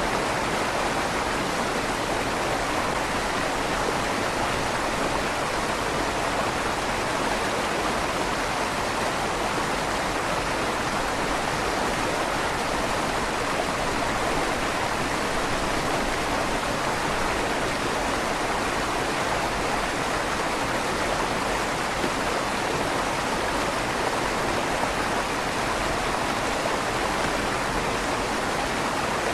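River water flowing steadily beneath a stone bridge, a constant rush of water that echoes slightly inside the bridge's tunnel.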